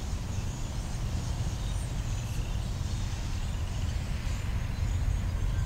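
Outdoor trackside ambience: a steady low rumble with faint, scattered bird chirps high above it, the rumble growing slightly louder near the end.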